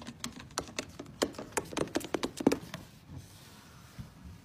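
Light, irregular taps of a small animal's paws on a wooden floor, several a second, stopping about three seconds in.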